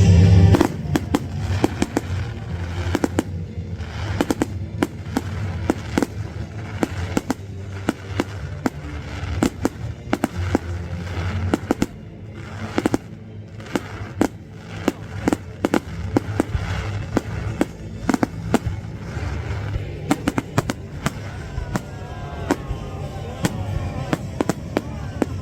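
Fireworks going off: a dense, irregular run of sharp bangs and crackles, with music playing underneath.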